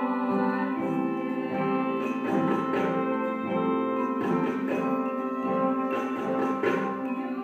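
Instrumental music played live by an ensemble: held, layered notes over a steady pulse of struck notes, somewhat under two a second.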